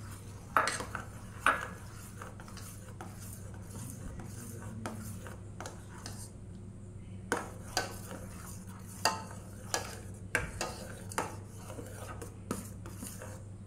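Steel spoon stirring thickening custard in a stainless steel saucepan, scraping around the bottom and sides, with sharp clinks of the spoon against the pan now and then, over a steady low hum.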